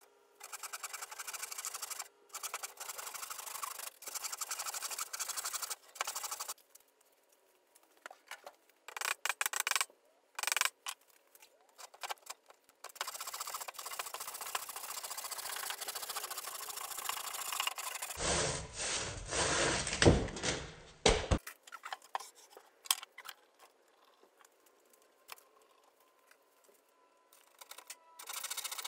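Hand saw cutting across a live-edge walnut slab, in runs of steady back-and-forth strokes broken by short pauses. The strokes are loudest about two-thirds of the way through.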